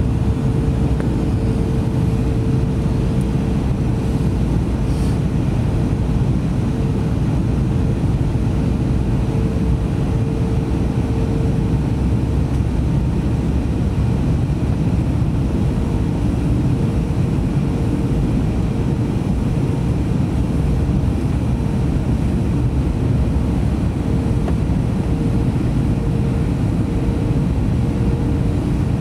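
Steady low rumble of airflow and turbofan engines, heard inside the passenger cabin of an Airbus A321neo airliner in flight, with a steady mid-pitched tone running through it.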